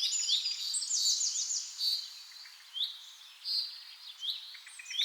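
Birds chirping and singing: a quick rattling trill about a second in, then short, high, falling whistled notes repeating every second or so.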